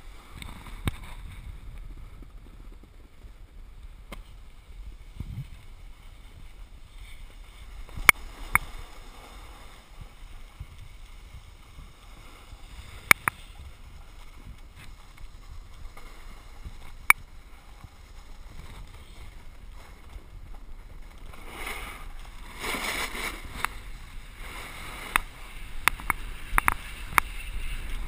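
Steady hiss of sliding down a groomed ski slope on packed snow, with a few sharp clicks and knocks. The scraping grows louder and rougher, with many more clicks, over the last six or seven seconds.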